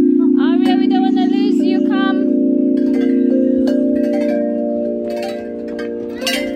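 Metal chimes being struck, ringing in long overlapping notes that step from one pitch to another as new strikes come in. A high wavering sound rides over the chimes for the first two seconds or so.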